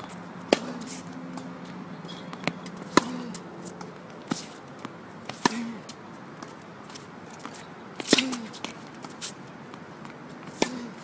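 Tennis ball struck back and forth in a baseline rally on a hard court: sharp pops of racket strings on the ball about every two and a half seconds, with softer knocks in between.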